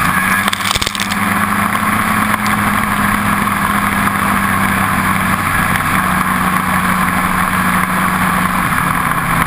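Ski-Doo snowmobile engine running steadily at cruising speed, its pitch holding even and then settling slightly lower near the end, under a steady rushing hiss of wind and track noise. A brief buffeting sound comes about a second in.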